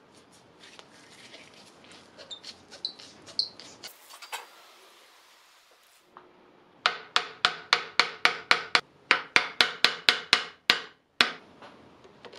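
A fast, regular run of about eighteen hammer taps, roughly four a second, each with a short metallic ring, on a thin steel tool set against the rust-seized jaw of an old wrench held in a vise, to break it free. Before this comes about two seconds of aerosol penetrating-oil spray hissing. At the start there are faint clicks and squeaks as the rusty wrench is handled.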